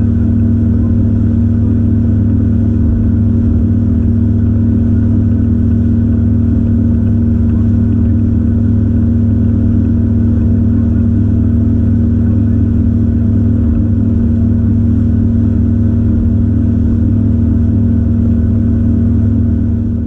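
A 250-horsepower outboard motor running steadily at cruising speed as the boat planes, a loud even drone that fades out near the end.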